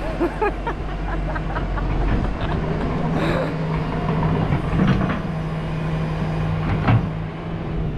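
Tractor engine running steadily as it tows a sailboat out of the water and up the beach, with scattered knocks and clicks.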